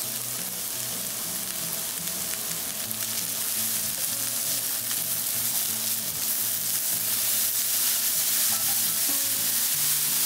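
Carrots sizzling steadily in a lightly oiled frying pan as they are stir-fried, the sizzle growing slightly louder.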